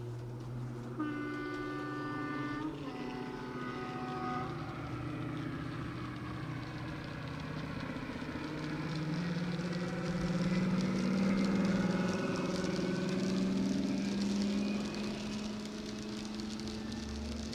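Sound from a DCC sound decoder in a model British Rail diesel locomotive: a two-tone horn sounds about a second in, high note then low note. The engine note then climbs and grows louder as the train passes, easing off near the end.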